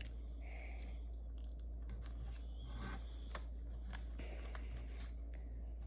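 Sheets of paper being folded and creased by hand: a few faint, scattered clicks and rustles over a steady low hum.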